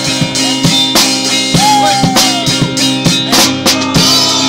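Live rock band playing: drum kit keeping a steady beat with cymbal and drum hits under electric guitar. A held note slides downward about two seconds in.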